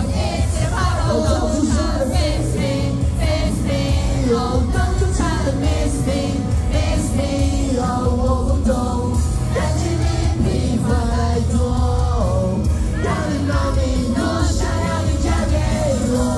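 Live amplified pop music: a male voice sings a melody into a microphone over a backing track with heavy, steady bass, played loud through PA speakers.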